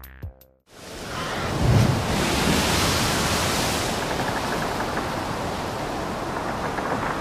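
Steady rushing noise of wind and sea, with a low gust buffeting the microphone nearly two seconds in.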